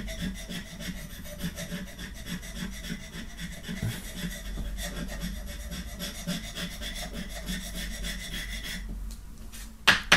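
Rapid, repeated scraping strokes as the silver coating of a scratch-off panel on a card is rubbed away. The scraping stops shortly before the end, followed by two sharp knocks.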